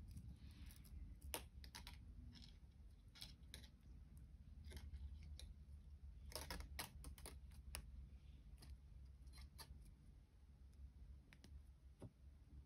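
Faint, irregular clicks and light scrapes of thin copper wire being pulled through and wrapped around a copper wire cuff frame, some coming in quick little clusters.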